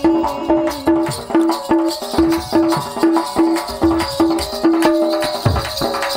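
Instrumental interlude of Sambalpuri folk music: a melodic instrument repeats short notes about two to three a second over hand-drum strokes, with deeper drum beats near the end.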